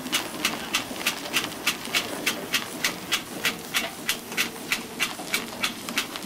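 Burrell showman's steam engine running, its exhaust beating sharply and steadily at about three beats a second over a steady hiss.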